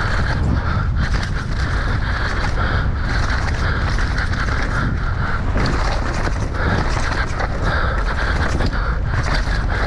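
Mountain bike descending a trail at speed: a steady rush of wind on the microphone and tyres rolling over dirt and rock, with quick rattles and knocks from the bike over bumps.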